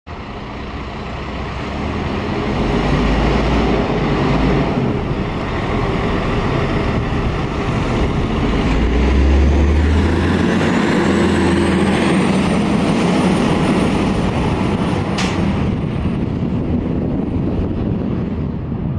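Diesel fire engine pulling out of its station and accelerating away down the street, a heavy steady engine rumble that swells as it turns past about halfway through. A faint high whine rises soon after, and there is one brief sharp noise near the end.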